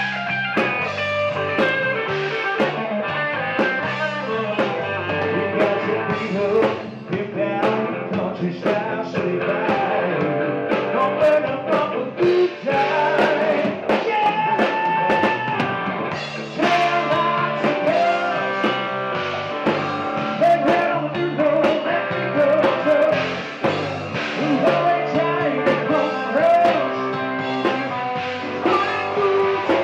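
A live rock band playing: electric guitars over a drum kit, with a man singing lead into a microphone.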